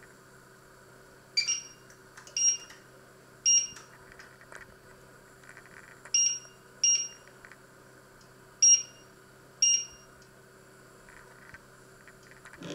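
Electric hob's touch-control panel beeping: seven short, high beeps in irregular succession as its keys are pressed to set the cooking zone's power level and timer, over a faint steady hum.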